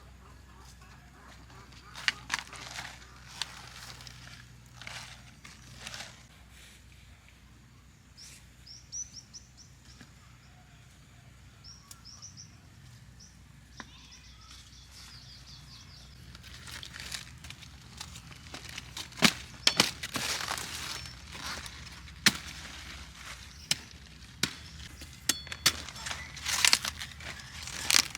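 Scattered knocks, clicks and rustles of handling and work, sparse at first and busier in the second half. Short high chirps come in between, around a third of the way in, with a low steady hum underneath.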